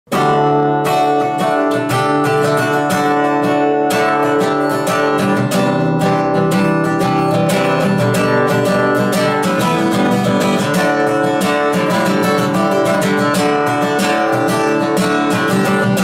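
A hollow-body guitar strummed in a steady rhythm, the instrumental intro of a song before the vocals come in.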